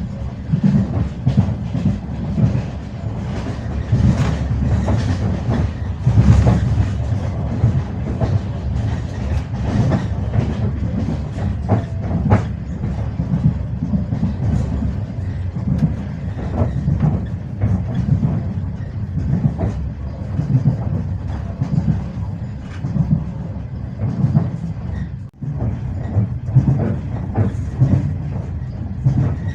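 Passenger train rolling along with steady rumble and the clickety-clack of its wheels knocking over rail joints, about 25 seconds in the sound briefly drops away.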